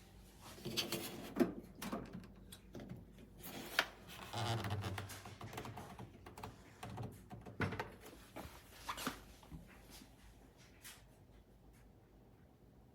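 Scattered clicks, knocks and rustling, irregular and unrhythmic, with the loudest knocks about a second and a half and four seconds in.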